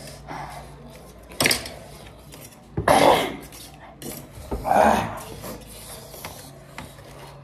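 Eating noises at a bowl of ramen: utensils clinking and scraping against the bowl, with three louder bursts about a second and a half apart.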